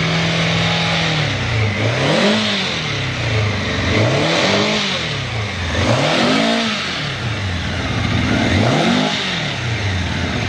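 Honda CBX750F Bol d'Or's air-cooled inline-four engine running at a steady fast idle, then blipped four times, each rev rising and falling back about two seconds apart, and settling to a lower steady idle near the end.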